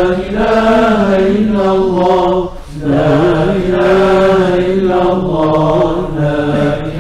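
A man's voice chanting a prayer in long, held melodic phrases, with a short break about two and a half seconds in.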